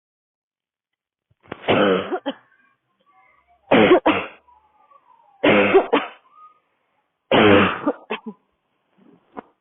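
A woman's dry, barking cough: four hard coughs about two seconds apart, each with a voiced, rasping core.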